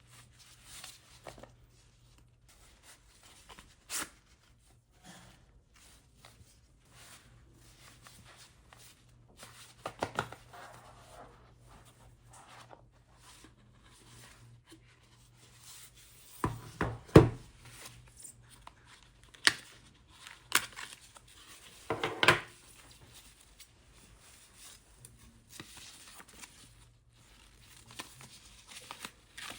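Unboxing handling noise: irregular rustling, tearing and crinkling of cardboard and paper packaging, with light clicks and taps, and a few louder knocks about 16–17 and 22 seconds in.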